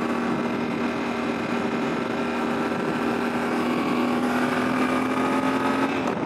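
Yamaha Ténéré 700's parallel-twin engine pulling steadily as the bike gently gains speed on a highway on-ramp, its note holding an even pitch, over a rush of wind and road noise. Near the end the engine note breaks off briefly.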